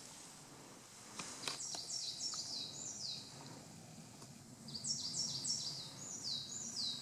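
A small bird singing faintly in woodland: quick runs of high notes, each sliding down in pitch, one run starting about a second and a half in and another from about four and a half seconds. A couple of soft clicks sound about a second in.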